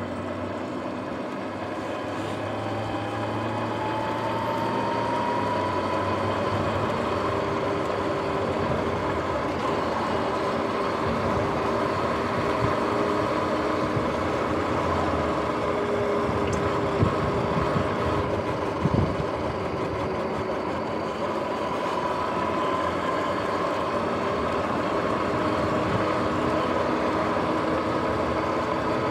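Sur-Ron X electric dirt bike under way: the motor whine rises in pitch over the first several seconds as it speeds up, then holds steady over tyre and wind rush. A couple of brief knocks come about two-thirds of the way through.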